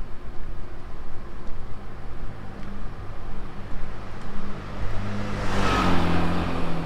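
Street traffic: a steady engine hum, with a vehicle passing close about five and a half seconds in, its sound swelling and then fading.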